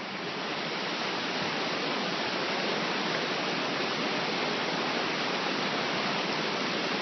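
Whitewater rapids of a mountain river rushing steadily over rocks, swelling slightly in the first second.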